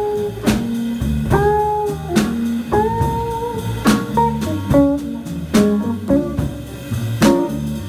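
Jazz band playing an instrumental passage: a guitar solos in single held and bending notes over upright bass and drums, with regular drum and cymbal hits.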